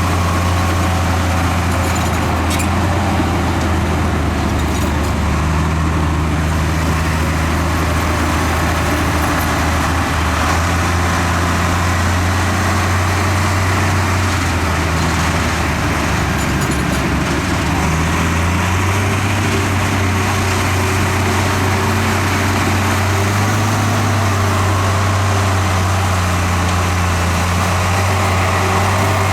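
Heavy diesel engine of earthmoving equipment running steadily, its engine note shifting a little past halfway through.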